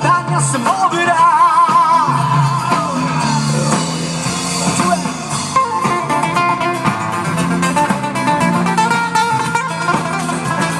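A singer's voice with a wavering vibrato over guitar accompaniment, played as a band's sound check.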